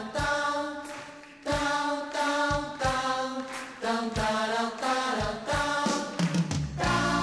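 Stage musical number: a group of voices chanting long held notes over sharp percussive hits, about two a second, with a bass line coming in near the end.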